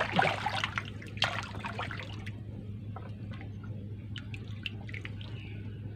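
Farmed groupers crowding at the surface of a floating net cage, splashing and slapping the water. The splashing is thickest in the first two seconds, then gives way to lighter drips and small splashes over a steady low hum.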